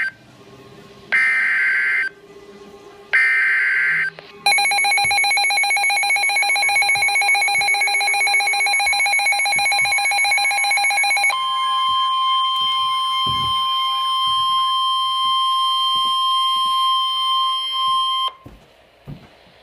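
Emergency Alert System signals: two short screeching data bursts of the SAME header, then a buzzy alert tone pulsing rapidly for about seven seconds, then a steady single-pitched warning tone for about seven seconds before it cuts off.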